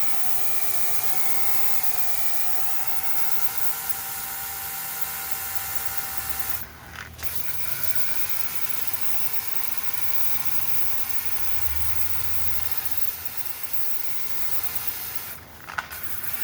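Hercules rotary polisher fitted with a sanding disc running and grinding body filler, a steady motor whine over the rasp of the abrasive, the pitch sagging a little under load. The sound drops out briefly twice, about seven seconds in and near the end, with a sharp click after the second.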